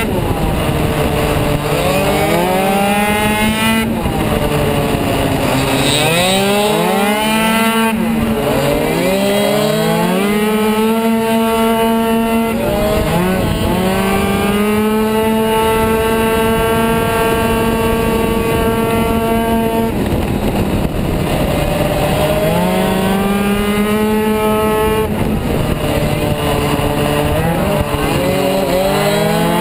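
Tuned 70 cc two-stroke engine of a Kymco Super 9 race scooter at racing speed, heard on board. Its pitch drops off and climbs back several times as the throttle is shut and reopened through the corners, and it holds steady at high revs for several seconds near the middle.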